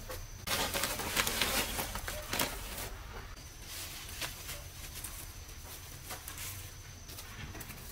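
Leafy vine greens rustling and crackling as a bundle of stems is handled and broken apart, busiest in the first few seconds, then lighter rustles and clicks.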